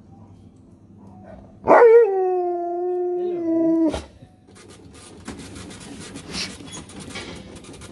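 A husky-type dog gives one long, howl-like 'talking' call. It slides down from a high, wavering start, holds its pitch for about two seconds, then breaks off sharply. Quieter rattling clatter follows.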